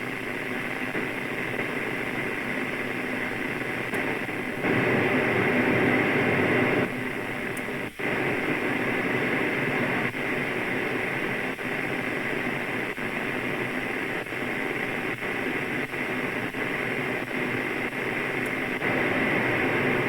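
Xiegu G90 transceiver receiving in FM with no signal, giving a steady hiss of radio static. It gets louder for about two seconds, drops out sharply near the middle, then dips briefly about every second.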